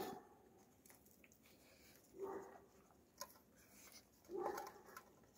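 Alabai puppies eating from metal bowls: faint chewing, light clicks against the bowls, and two short low whines, about two seconds and four and a half seconds in.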